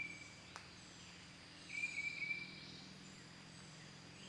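Quiet room tone with a faint, high, wavering animal call, under a second long, repeated about every two and a half seconds, and a single light tap about half a second in.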